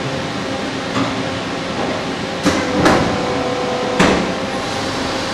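Victor Taichung Vturn-V24W vertical turning center running while machining a wheel: a steady machine hum with a held tone, broken by four sharp knocks, the strongest about three and four seconds in.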